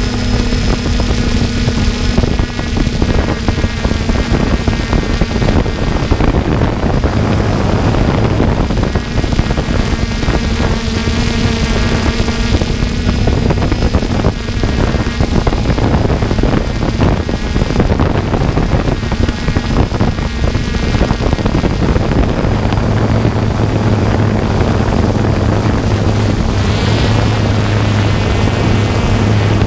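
Camera drone's motors and propellers humming steadily, with wind buffeting the microphone. The hum shifts to a deeper tone about two-thirds of the way through.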